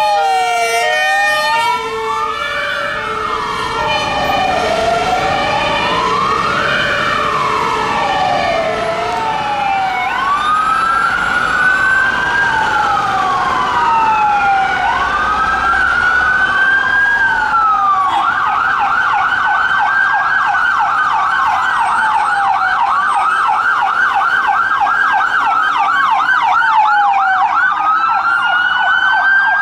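Emergency vehicle sirens. First a slow wail rising and falling over a few seconds, with a low two-note tone alternating beneath it, from an ambulance rapid-response car. About ten seconds in come police public order van sirens: a wail that switches to a fast yelp about eighteen seconds in, with a second siren joining near the end.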